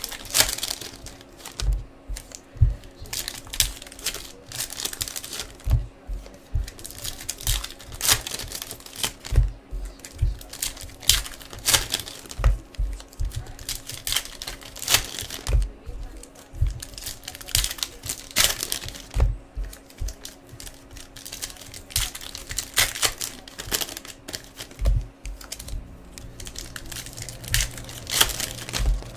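Foil wrappers of 2015 Topps Series 1 baseball card packs crinkling and tearing as pack after pack is opened by hand, in irregular crackles, with occasional low knocks.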